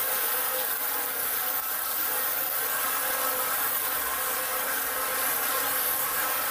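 Hose spray nozzle jetting water onto the inside walls of a brewing vessel to rinse off trub residue: a steady hiss of spray.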